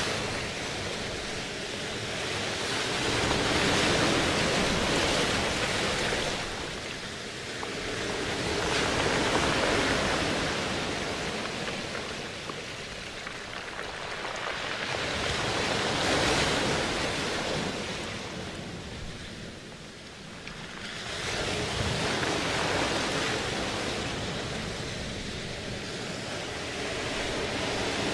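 Ocean surf washing in and drawing back, a steady rush of noise that swells and fades about every six seconds.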